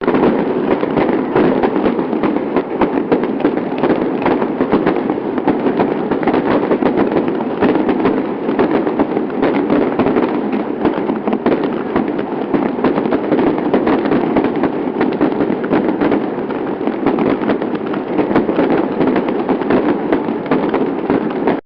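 A long string of firecrackers going off in a dense, rapid, unbroken crackle of pops. It starts and cuts off abruptly.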